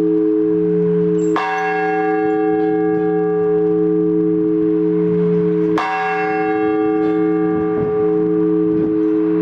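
Blagovest: a single large church bell struck in slow, measured strokes to call the faithful to the liturgy. Two strokes land about four and a half seconds apart, each ringing on with a long, deep hum.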